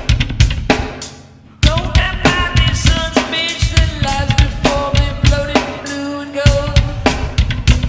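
Background music with a drum-kit beat; it falls away for about a second near the start, then the drums come back with a held melodic line over them.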